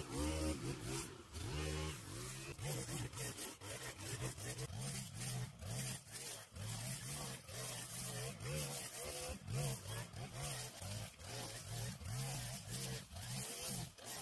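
Gas string trimmer running and cutting overgrown grass and weeds, its engine pitch rising and falling as the line takes load, with many short sharp ticks over it.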